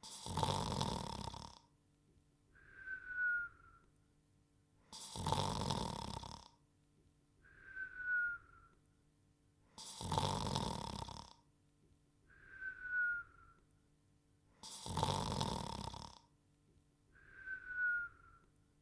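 Cartoon dog's comic sleeping sound: a loud snore about a second and a half long, then a short whistle that slides down in pitch. The pair repeats four times, about every five seconds.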